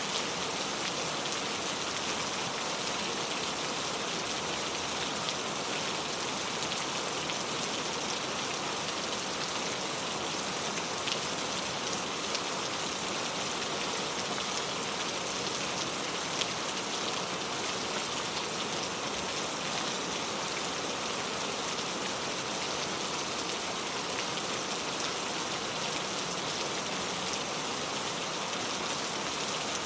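Steady rain falling, a dense even hiss with scattered small drop ticks on hard surfaces.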